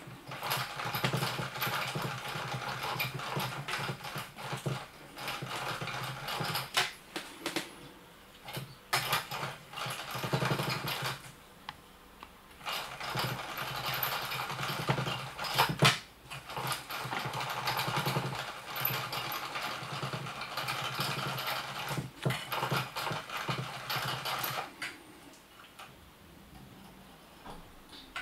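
Small electric motor of a battery-powered spinning butterfly cat toy, whirring as it swings the butterfly around on its wire, with a few sharp knocks. It pauses briefly near the middle and stops a few seconds before the end.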